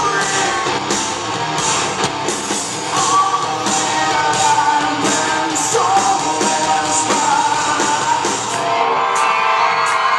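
Live rock band playing loudly: drums with regular cymbal hits and electric guitars, with vocals over them, recorded from the audience in a large hall.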